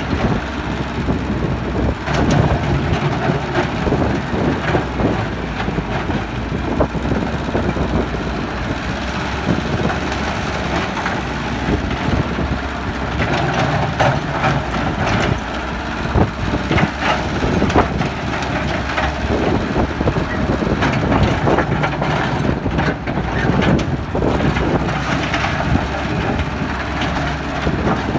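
Excavator's diesel engine running steadily under working load, with frequent knocks and clatter of loose earth and stones.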